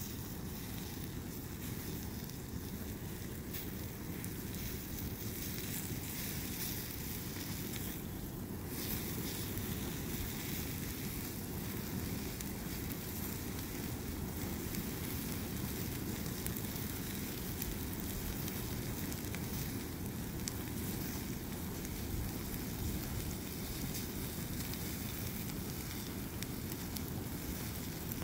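A pile of nylon snow pants and jackets burning: a steady rush of flames with faint crackling, under a low rumble of wind on the microphone.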